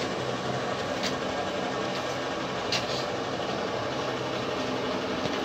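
Steady hum of an electric machine motor running, with a few light clicks about a second and about three seconds in.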